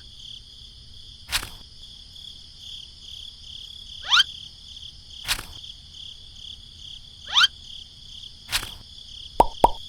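Steady high-pitched insect chorus, with three short rising chirps, each followed about a second later by a sharp click. Near the end comes a quick run of about five clicks.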